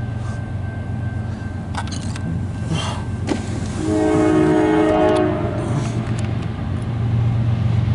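Diesel locomotives of a loaded CSX coal train rumbling steadily. About four seconds in, the lead locomotive's air horn sounds one chord blast of about two seconds.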